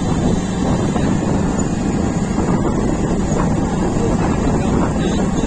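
Bajaj Pulsar NS motorcycle engine running steadily while riding at about 35 km/h, mixed with steady wind rush on the microphone.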